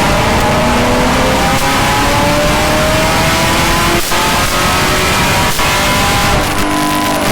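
Chevrolet Camaro ZL1's supercharged 6.2-litre LT4 V8 running loud through its aftermarket exhaust, the engine note rising steadily under acceleration. There are two brief sharp breaks about four and five and a half seconds in, and a few crackles near the end.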